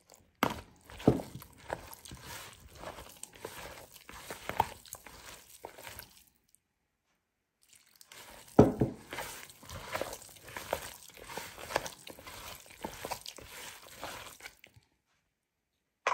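Hand mixing julienned potato strips with flour and water in a plastic bowl: irregular wet squishing and crunchy rustling of the strips, in two stretches broken by a pause of about a second and a half.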